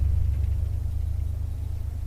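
1964 Dodge Custom 880's V8 running with a deep, steady low exhaust note that fades a little over the two seconds.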